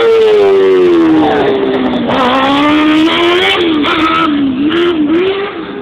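Single-seat racing buggy's engine at high revs. Its pitch falls over the first two seconds, climbs again, then wavers up and down with the throttle before fading near the end.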